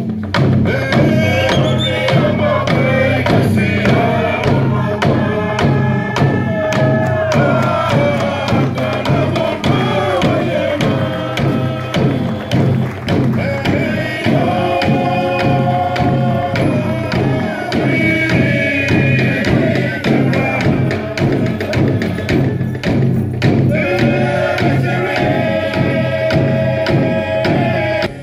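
Traditional Torres Strait Islander dance music: a group singing a chant-like song together over a steady beat on long wooden hand drums. Singing and drumming carry on loudly and stop sharply at the end.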